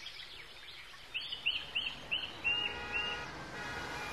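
Bird chirping as a sound effect: a quick run of about six short, high chirps starting about a second in. A faint, steady hum with several tones fades in near the end.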